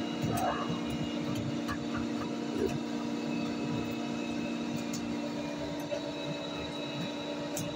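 Steady mechanical hum with several fixed tones, with a few faint small clicks from a brass lever door handle and its lock being handled and fitted into a wooden door.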